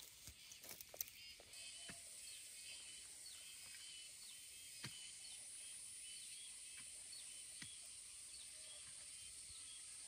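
Faint outdoor ambience: a steady high hiss of insects with small repeated chirps. A few soft knocks come in the first second and a half as a hoe strikes loose soil, and two more faint knocks sound near the middle.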